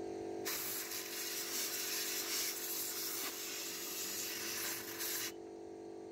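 Compressed air hissing from an old Soviet blow gun, blowing dust out of an open welding machine: one long blast starting about half a second in and cut off about a second before the end, over a steady low hum.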